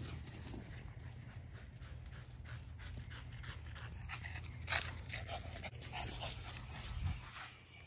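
A dog panting in quick, even breaths, about three a second, with two brief louder knocks, about halfway through and near the end.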